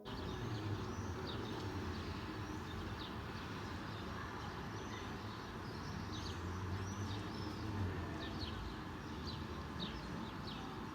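Birds chirping in short, repeated calls throughout, over a steady low background rumble.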